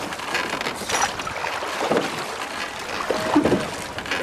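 Wooden rowing skiff under way: the oars knock in their rowlocks and splash through the water in repeated strokes, over wind buffeting the microphone.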